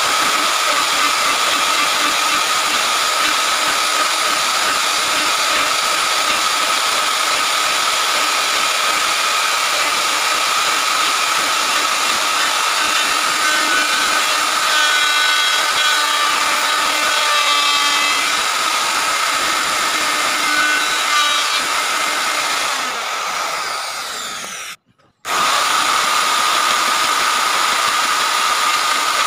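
Electric wood router running at full speed as it cuts along a wooden cabinet door frame, a steady high whine with shavings being cut. About 25 seconds in the sound sags, breaks off sharply, then comes back at full speed.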